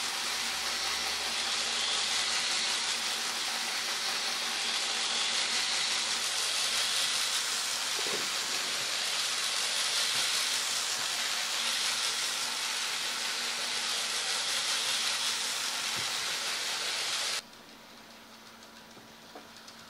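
Rokuhan Z-gauge Shinkansen 500 series model train running on its track: a steady hiss that drops suddenly to a much quieter hiss about 17 seconds in.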